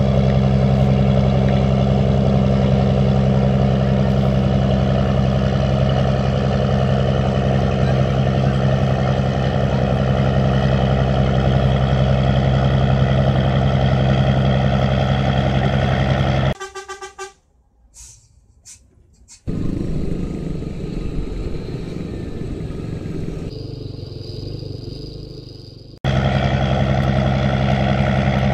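Boat's diesel engine droning steadily and loudly. About two-thirds of the way in the sound drops away for a few seconds and comes back rougher and noisier, and the steady drone cuts back in near the end.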